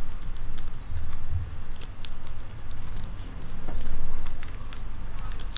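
Origami paper crinkling and crackling as it is creased and folded by hand: scattered sharp clicks throughout, over a dull, uneven low rumble from handling.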